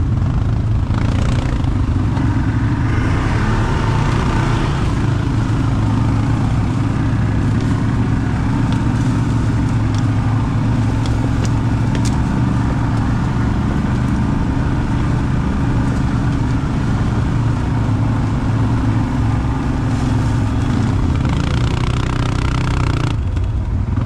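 ATV engine running steadily at an even pitch.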